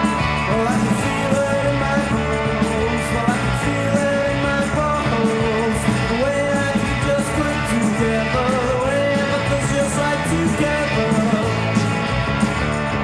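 Rock band demo recording: a sung melody over electric guitar, bass and drums with steady cymbal hits.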